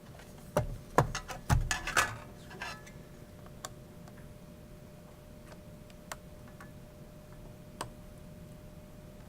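Small clicks and taps of a magnetic Torx screwdriver working a tiny screw inside an opened Mac mini: a cluster of knocks and ticks in the first three seconds, then a few single ticks spaced out.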